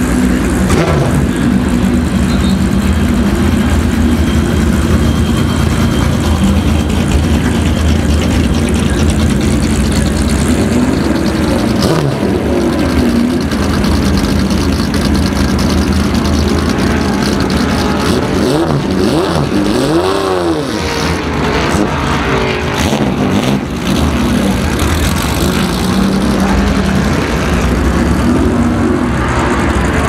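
Datsun 240Z race car's straight-six engine running loudly at a slow roll through the paddock, with a rise and fall in revs about twenty seconds in. Near the end another race car's engine joins it.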